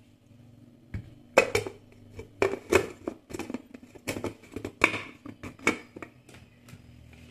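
Plastic clicking and knocking as the lid of a small electric food chopper is fitted and twisted onto its bowl: a run of sharp taps from about one to six seconds in, with no motor running.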